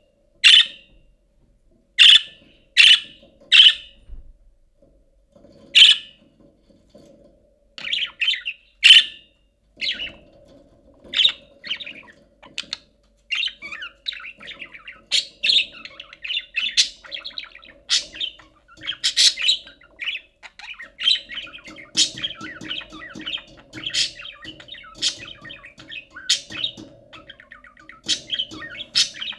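Budgerigar calling: loud separate chirps for the first part, then from about halfway a continuous chattering warble of quick short notes broken by louder chirps.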